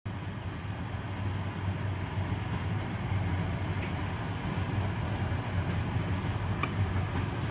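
Bacon frying on a thick iron griddle over an alcohol stove: a steady low rumble under a sizzling hiss, with one sharp crackle about two-thirds of the way through.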